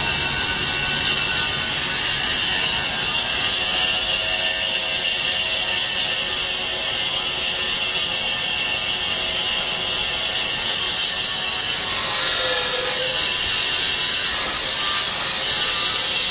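Vertical band-saw foam cutting machine running, its blade slicing through a stack of grey foam sheets: a steady high-pitched mechanical whine that grows louder and brighter about twelve seconds in.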